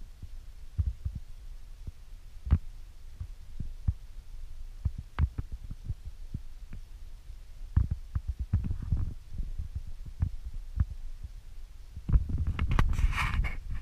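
Irregular low thumps and rumble, with a brief hissing rush near the end.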